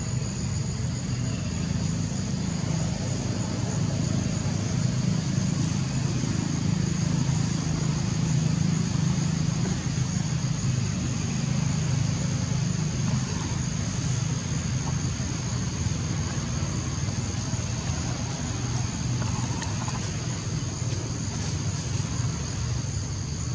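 Steady outdoor ambience: a constant low rumble like a running engine, under a continuous high-pitched insect drone, likely cicadas or crickets.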